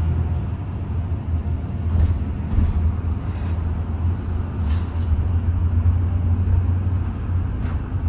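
Cabin noise of a driverless bus under way: a steady low rumble with road noise, and a few faint clicks or rattles.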